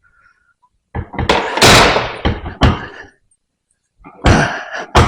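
Metal parts of a hydraulic cylinder being knocked and handled, in two spells of thunks and clatter, the second starting about four seconds in.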